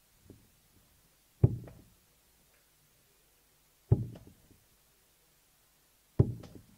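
Three steel-tip darts striking a bristle dartboard one after another, about two and a half seconds apart, each a sharp thud with a short ringing tail.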